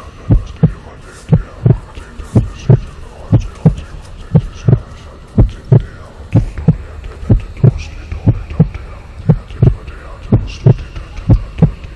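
Heartbeat sound effect: low double thumps, lub-dub, repeating steadily about once a second.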